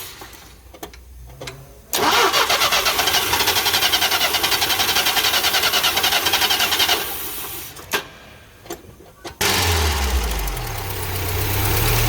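Starter cranking a UMZ-4216 petrol four-cylinder engine with an even rhythmic churn for about five seconds without it catching. After a couple of clicks, it fires on a further try near the end and settles into a steady idle, on its first start after a new rocker arm shaft was fitted.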